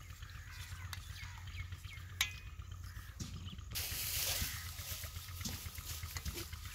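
Spoons clinking and scraping on a steel plate as people eat, over a steady low hum, with one sharp ringing clink about two seconds in. About halfway through, the background jumps to a louder hiss.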